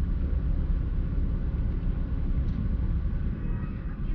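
Low, steady rumble of a car running, heard from inside its cabin.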